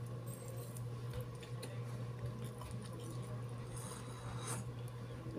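Faint eating sounds: chewing a mouthful, then a few small clicks and a sip from a bowl near the end, over a steady low hum.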